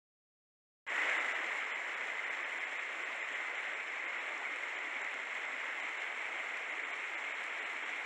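Silence for about the first second, then a small stream's water running steadily, a even rushing wash.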